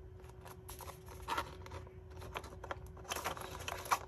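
Cardstock paper reels being handled and pressed together on a wooden dowel: a scatter of small paper clicks, taps and scrapes, busier about three seconds in.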